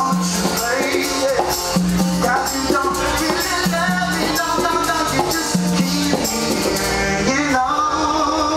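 Live acoustic band: a male voice singing over acoustic guitars, with a rattling percussion part keeping time. Near the end the rattle drops out and longer held notes ring on.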